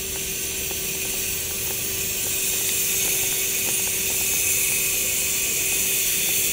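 A steady high hiss with a constant faint hum under it, and faint soft squelching of gloved hands kneading rice and wet cat food in a plastic tub.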